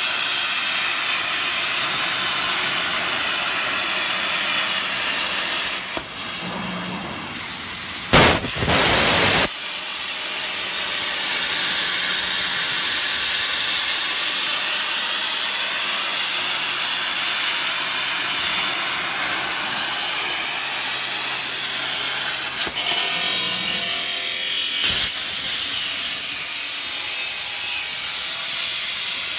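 CNC plasma torch cutting sheet steel: a steady, loud hissing rasp of the plasma arc. A brief louder burst comes about eight seconds in, and the hiss changes briefly again a little past two-thirds of the way through.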